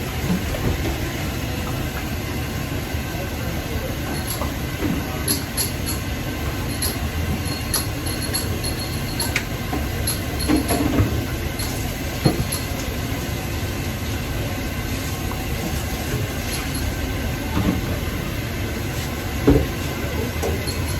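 Busy shop ambience: a steady low rumble, with scattered metallic clinks and ticks and faint voices.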